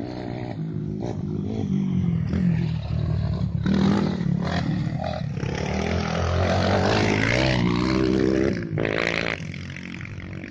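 Dirt bikes' engines revving hard as they ride past close by, the pitch climbing and falling with throttle and gear changes. The sound is loudest in the middle and drops away about three quarters of the way through.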